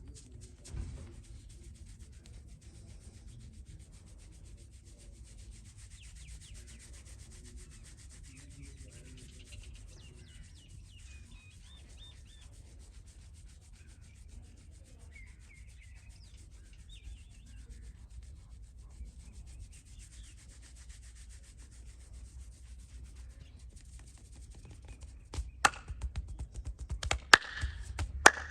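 Hands rubbing rapidly and steadily over skin and hair during a head and back massage. Near the end come a handful of sharp, loud smacks of hands striking the body.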